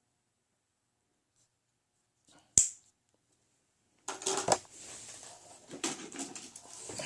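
Silence, then one sharp click a little past halfway, followed by rustling and small clicks as an old pocket knife is handled.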